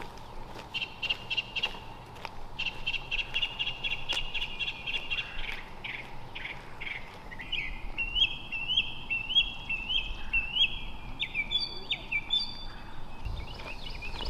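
Birds singing: a fast trilling song in the first half, then a run of repeated short rising chirps, about two a second, in the second half.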